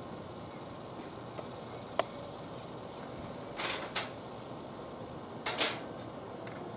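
Breakfast-table handling sounds: a sharp click about two seconds in, then short scuffs and taps around four and five and a half seconds in, as a milk carton, cap and utensils are handled and set on a metal mesh table. A steady hiss runs underneath.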